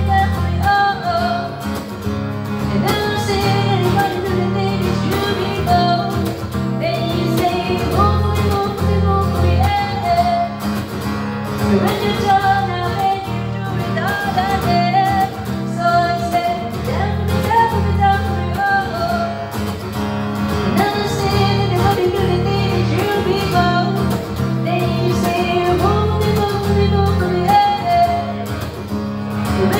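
Guitar music: a pop-song cover, with a wavering melody line carried over steady low chords and bass notes.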